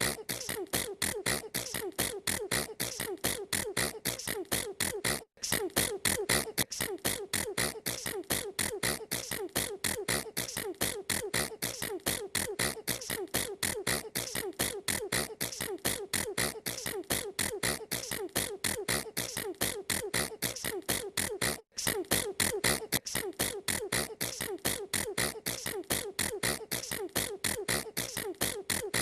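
A girl's sneezes repeated in a rapid, evenly spaced stream, about four a second, with two brief breaks about five and twenty-two seconds in.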